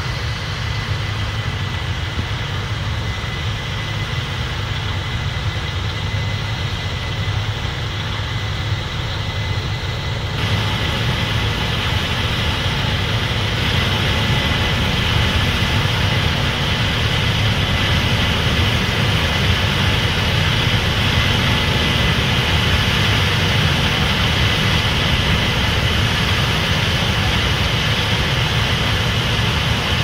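Diesel engines of corn-harvest machinery, a tractor pulling a grain cart and a combine, running steadily with a deep hum and a rushing noise over it. About ten seconds in the sound abruptly gets louder and brighter.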